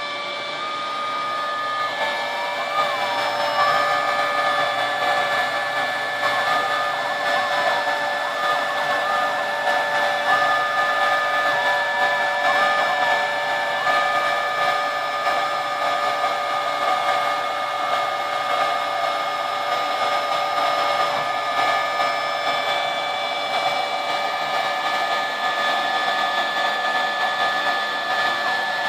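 Homebuilt CNC router carving a wood sign in a long raster pass: the router motor runs with a steady whine over the noise of the bit cutting, while a second tone from the axis drives jumps up and down and wavers in pitch as the carriage moves back and forth.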